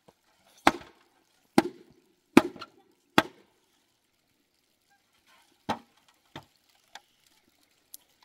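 Sharp blows striking wood: four strong strikes a little under a second apart, then after a pause a few lighter ones.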